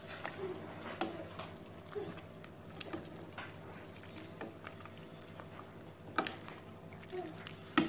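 Metal spoon stirring a stainless steel pot of simmering chicken-and-greens soup, with light clicks against the pot about once a second. A steady low hum runs underneath.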